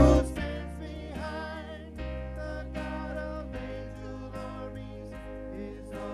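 Church worship band music: keyboard chords held over low bass notes that change every second or two, with women singing faintly into microphones. The music drops sharply in loudness just after the start.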